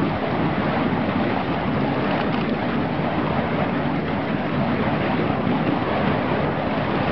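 Steady rushing noise of wind across the microphone, even and unbroken, with no clear rhythm.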